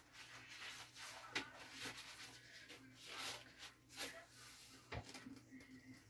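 Faint rustling of a paper towel being handled, with a few soft knocks and one sharper knock about five seconds in, over a steady low hum.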